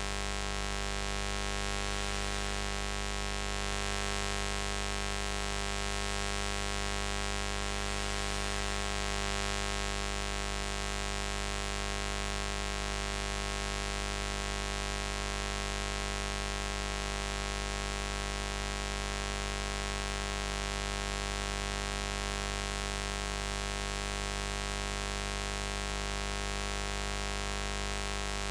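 Continuous buzz, steady in pitch and level, with many overtones layered over a strong low hum.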